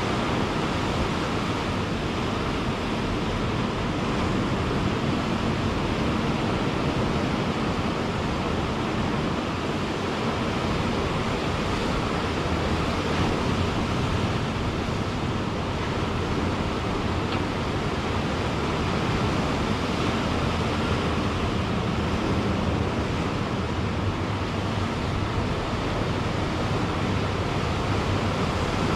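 Ocean surf washing onto the shore in a steady, continuous rush, with gentle swells in loudness and no distinct single breakers standing out.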